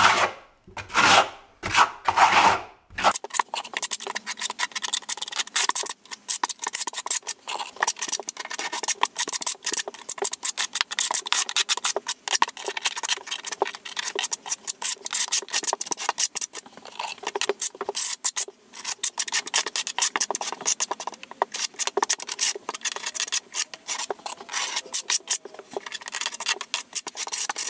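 A trowel blade scraping and rubbing across a wall in rapid, repeated strokes, spreading and smoothing a thin skim coat of thinset; the steady scraping starts about three seconds in.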